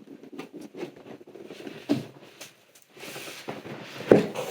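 An advent calendar box being opened and handled by hand: packaging rustling and scraping, with scattered small clicks and taps and a louder knock near the end.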